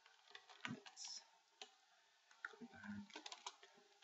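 Faint, scattered clicks of a computer mouse and keyboard, with a brief low murmur about three seconds in.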